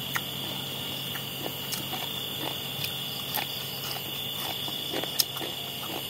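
Steady high-pitched chorus of night insects such as crickets, with a few faint scattered clicks.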